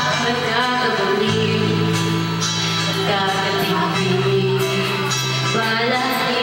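A girl singing into a handheld microphone over backing music, with held bass notes that change every second or so.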